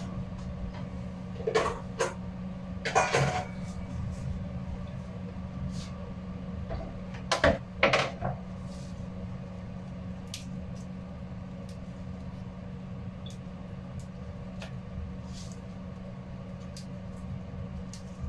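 Hands picking jute mallow (saluyot) leaves off their stems, with leaf rustling and small stem snaps. A few louder clunks of handling come in the first half, about two seconds in, around three seconds and around eight seconds, all over a steady low hum.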